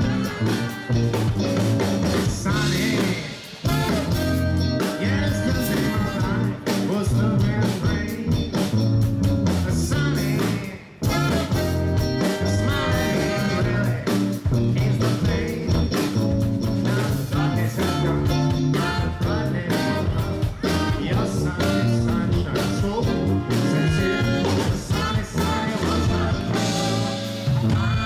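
Live band music: saxophones, trumpet, electric guitar and drums, with a man singing. The band stops for a moment about eleven seconds in, then carries on.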